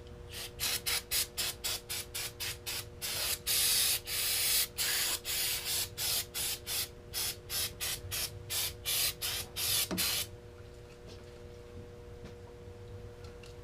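Aerosol can of carb and choke cleaner sprayed in many short bursts, with a few held longer, stopping about ten seconds in.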